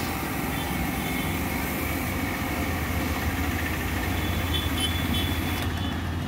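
A 130-bar pressure washer running, its high-pressure jet spraying into the air with a steady loud hiss over a low motor hum. The spray hiss cuts off near the end while the low hum continues.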